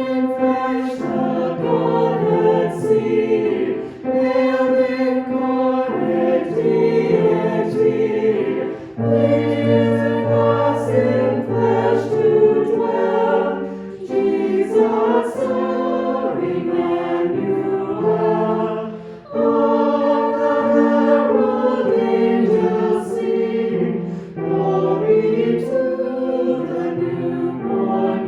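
A choir singing a hymn in long held phrases, with brief breaths between phrases about every five seconds.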